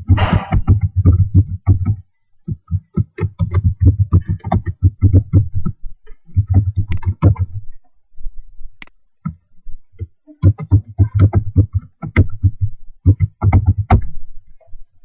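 Typing on a computer keyboard: several runs of rapid keystrokes, loud and close, broken by short pauses and one longer pause of about two seconds with a single click in it.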